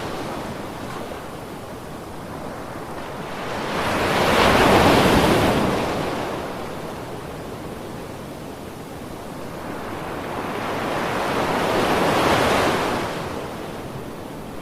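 Ocean waves breaking and washing up a shore: two waves swell and fade, the first peaking about five seconds in and the second near the end.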